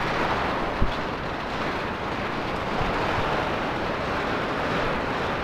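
Firecrackers and fireworks going off continuously in the distance, merging into a dense, steady crackle. One sharper bang comes about a second in.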